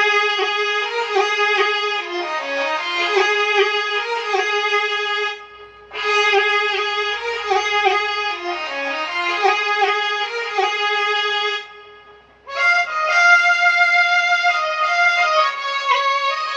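Sarangi voice of a Casio CT-X9000IN keyboard playing a bowed-string style melody. It plays the same phrase twice with brief pauses between, then a higher phrase from about twelve and a half seconds in.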